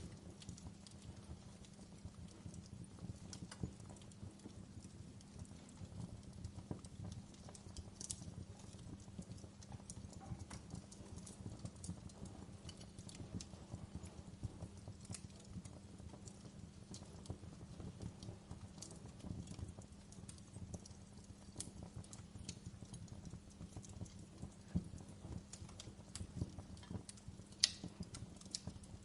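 Campfire crackling: a low steady rumble of burning with frequent small irregular pops and snaps, one sharper pop near the end.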